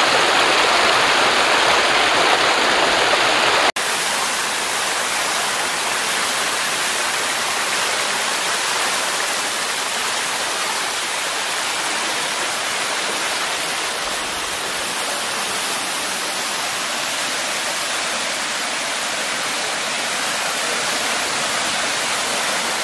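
Steady rush of water falling and flowing over rocks at a waterfall. About four seconds in the sound cuts to a slightly quieter, even rush.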